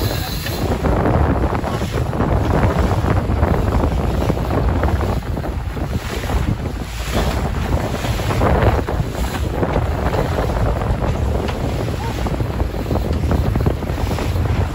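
Wind buffeting the microphone and water rushing past the hull and through the wake of a small fishing boat under way, over the steady running of its Mercury outboard motor. The loudness swells and dips with the gusts and the chop.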